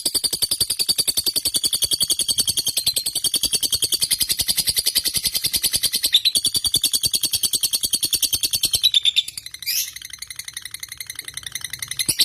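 Lovebird ngekek: a long, unbroken, very fast chattering trill of sharp high notes. About nine seconds in it breaks and goes weaker, then builds again near the end.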